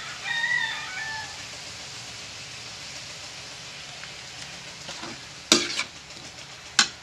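Snails in their shells sizzling in a hot wok, a steady hiss, just after soy sauce is poured in. A short high-pitched call comes in the first second, and the metal ladle clanks sharply against the wok twice in the last two seconds while stirring.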